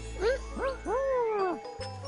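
Playful background music: a run of swooping notes that bend up and fall back, about five in quick succession that stop about a second and a half in, over a steady low note.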